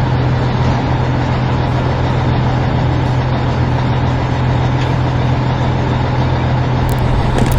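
A heavy vehicle's engine running steadily at a constant pitch, with a strong low hum.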